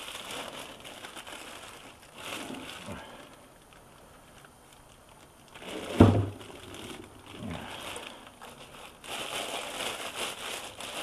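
Plastic bag wrapping crinkling and rustling in bursts as it is worked off a new bench vise, with one heavy thump about halfway through.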